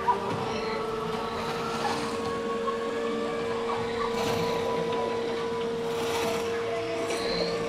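Ambient soundscape of a dark boat ride's artificial rainforest, played over speakers: a steady held hum with short scattered chirps and calls of imagined forest creatures and a few brief rustling hisses.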